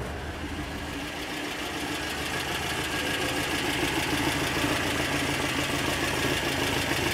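Air-cooled 2332 cc VW flat-four with an SS143 exhaust idling steadily, getting gradually louder as the microphone moves from the cab out to the tailpipe at the rear. A faint whine from its straight-cut cam gear runs under the exhaust note.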